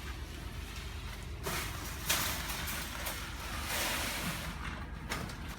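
Concrete pour in progress: a heavy engine runs steadily with a low rumble, and a louder rushing hiss from about a second and a half in eases off near the end.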